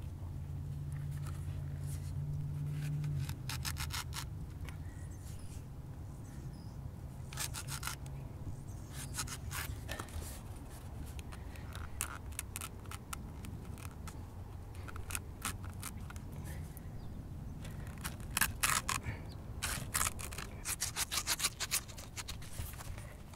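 Butternut squash skin being scraped off with a small hand-held blade: short runs of quick rasping scrapes in clusters, busiest near the end.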